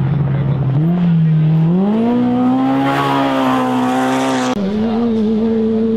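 Racing UTV engine accelerating, its note climbing in pitch and holding high with a rush of noise as it comes closest. About two-thirds through, the note drops suddenly and then runs steady.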